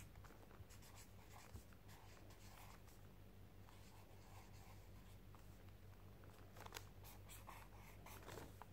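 Faint scratching of a marker drawing on paper, in short strokes, a little busier near the end, over a low steady hum.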